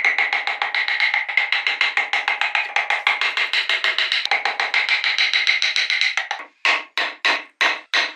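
A steel carving chisel is tapped rapidly into hardwood, about eight sharp ringing taps a second. Near the end the taps slow to separate strikes, about four a second.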